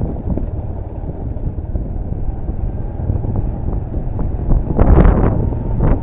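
Vehicle running along a rough gravel road, with a steady low rumble and wind buffeting the microphone. A louder gust comes about five seconds in.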